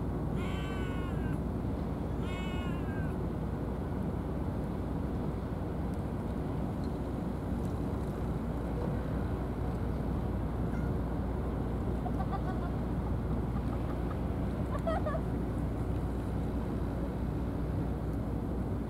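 Cat meowing twice in the first three seconds, each call falling in pitch, with a few fainter calls later, over a steady low outdoor rumble.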